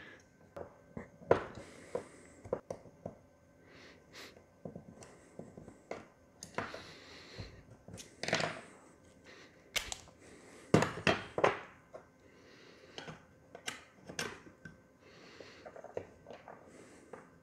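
Irregular clicks, knocks and short scrapes of a sheet-metal fluorescent fixture end bracket and plastic single-pin lamp holders being handled and pressed into place on a wooden tabletop.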